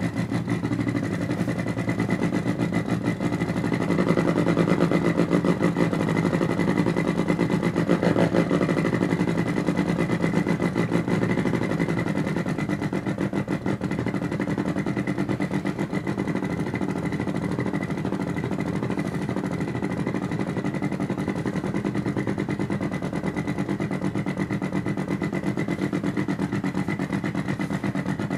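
Artificial engine sound played through a bookshelf speaker, made by function generators in sweep mode driving a small amplifier. It is a steady, fast-pulsing hum like an idling motor, swelling slightly a few seconds in.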